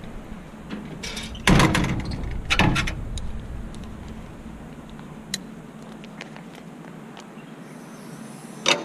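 Metal clanking and rattling on a boom lift's steel platform as it is handled: two loud rattling clanks about a second and a half and two and a half seconds in, a sharp click in the middle, and another short clank near the end.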